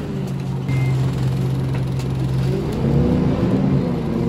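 Scania DC9 8.9-litre five-cylinder diesel of a Scania N230UB OmniCity bus running under way, heard from inside the passenger saloon. The engine note holds steady, then climbs and drops back about three seconds in.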